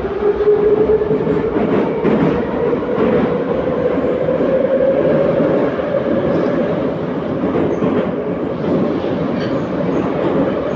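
Metro train car of type 81-714.5 running between stations, heard from inside the car: a whine that rises in pitch over the first few seconds as the train gathers speed, then holds steady over the rumble and clatter of the wheels on the track.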